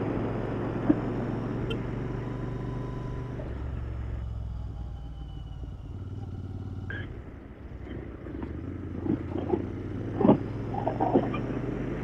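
Royal Enfield Interceptor 650's parallel-twin engine running under way. About three and a half seconds in the engine note drops as the bike slows, quietest a little past halfway, then picks up again.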